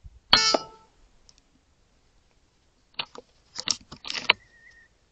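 RTI Prophet P3 PCP air rifle firing once, a sharp crack with a brief metallic ring. About three seconds later comes a quick run of mechanical clicks and clacks as the rifle's action is worked to reload.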